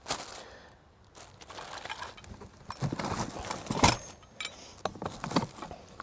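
Plastic wrapping crinkling and rustling as a bagged winch and hardware are handled in a cardboard box, with one sharp knock a little under four seconds in.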